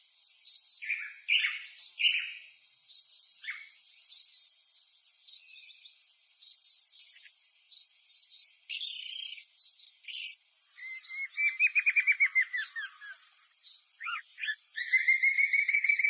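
Several wild birds calling and singing together, a mix of short chirps and high whistles. A fast trill of rapidly repeated notes comes in about eleven seconds in, and another near the end.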